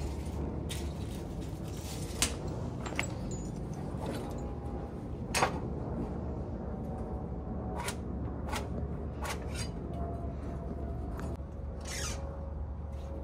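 Irregular sharp clicks and knocks from hand work on wooden roof trusses, over a steady low rumble.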